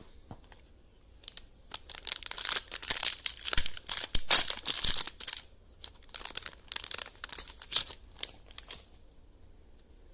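Foil wrapper of a Stadium Club baseball card hanger pack crinkling and tearing as it is ripped open. It is a long run of crackles that starts about a second in and stops shortly before the end.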